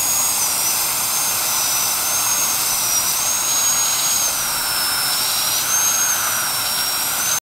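High-speed dental handpiece whining at a high pitch, the pitch dipping and recovering as the bur bears on the teeth, over the steady hiss of a suction tube. This is typical of grinding leftover bracket adhesive off the teeth once braces are removed. The sound cuts off abruptly near the end.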